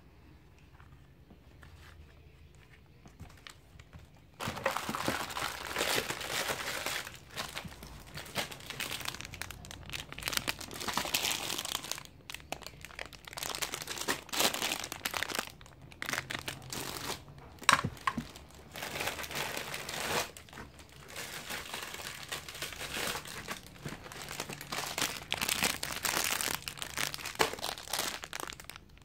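Packaging crinkling and rustling as it is handled, starting about four seconds in and going on unevenly with sharp crackles.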